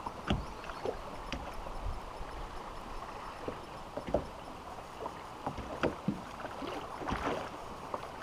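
Small lake waves lapping and slapping against the side of a small aluminium boat, with irregular light knocks and splashes over a steady wash of water.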